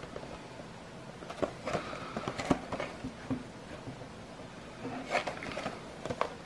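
A plastic blister pack on a card-backed toy package being handled and turned over in the hands: clusters of crackling and clicks, about a second and a half in and again about five seconds in.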